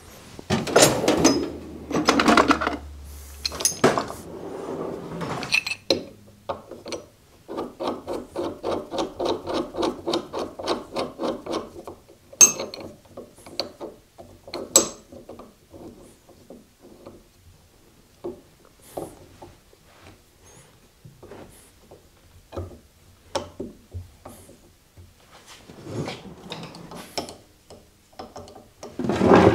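Hand tools and a gear puller being worked on an old electric motor's pulley on a wooden bench: clatters and knocks near the start and the end, and a stretch of rapid rhythmic scraping, about four or five strokes a second, in the middle. A few sharp metal clicks come in between.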